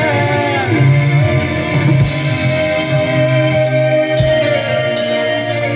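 Live rock band playing an instrumental passage between vocal lines: electric guitars, bass and drum kit, with one long held note for most of the passage.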